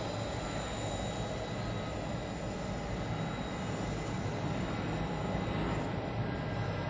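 Airbus A350's Rolls-Royce Trent XWB jet engines running at taxi power as the airliner turns onto the runway: a steady distant rumble and hiss with a faint high whine.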